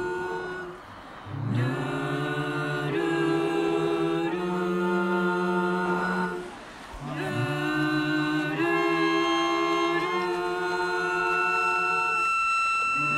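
Background music of slow, sustained choral chords held in long phrases. It drops away briefly about a second in and again around seven seconds.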